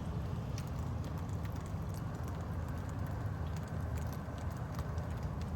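Steady rain with scattered drips tapping, over a low steady rumble.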